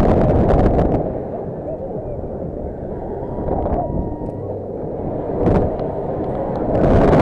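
Rushing air buffeting the microphone while riding a Booster fairground thrill ride, with a low rumble and a few short sharp sounds.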